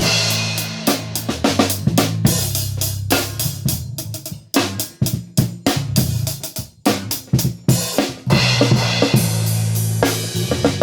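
Music led by a drum kit: kick drum, snare and cymbal strokes over held low bass notes. The low notes thin out for a few seconds in the middle, leaving mostly the drums.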